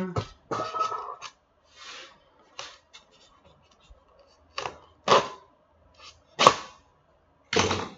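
Tape being cut and pulled off a polystyrene foam packing box: a string of short, sharp rasping and ripping noises about a second apart, with foam creaking and scraping under the hands, the loudest near the end.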